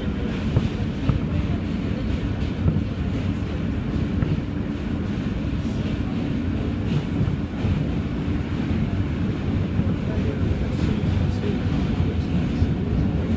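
New York subway train running across a steel suspension bridge, heard from inside the car: a steady low rumble of wheels on rails, with a few faint clicks.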